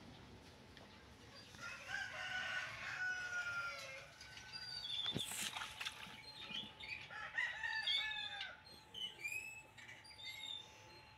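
A rooster crowing, with shorter bird chirps later on and a single sharp knock about five seconds in.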